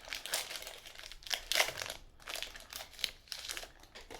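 Foil wrapper of a Pokémon trading-card booster pack crinkling in a series of rustling bursts as it is torn open.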